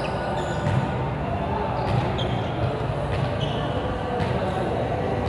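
A volleyball thudding on the gym court floor a few times, over a steady hum of hall noise in a large indoor sports hall.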